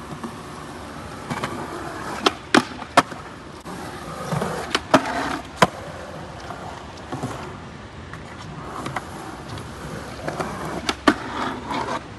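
Skateboard wheels rolling with a steady hiss over wet concrete, broken by several sharp cracks of tail pops and board landings, the loudest near the middle and again near the end.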